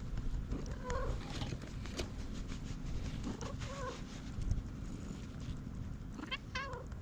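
Mackerel-tabby-and-white cat giving short, pigeon-like calls as its lower back is patted quickly: a few brief calls, about a second in, near the middle, and a quick run of them near the end. The calls are its delighted response to the rump pats.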